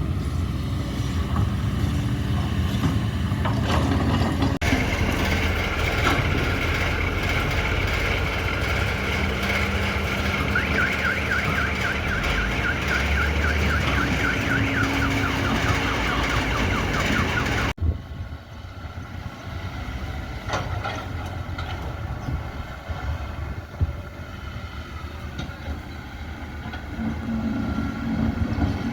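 Hydraulic excavator's diesel engine running under load, with a high whine over it. The sound changes abruptly twice where clips are cut together.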